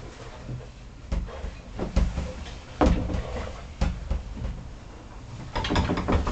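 Several irregular knocks and thumps of movement and handling inside a small boat cabin, over a low rumble, with a cluster of them near the end.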